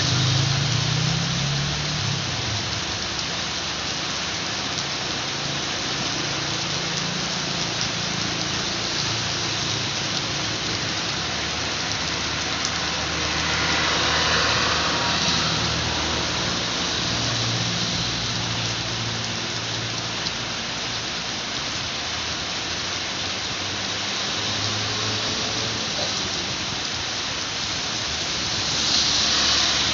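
Steady, heavy rain pouring down in a dense even hiss, swelling louder about halfway through and again near the end, with a low rumble coming and going underneath.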